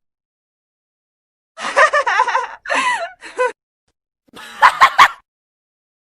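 Comic vocal sound effects. After a second and a half of silence, a cartoonish voice makes three short phrases with wavering, bending pitch. About four seconds in comes a quick run of short, choppy bursts like a giggle.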